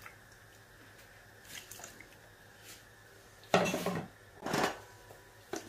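Pot-and-utensil clatter at a large pot of rice in boiling water: two short clattering bursts about a second apart past the middle, after a near-quiet stretch with a faint steady hum.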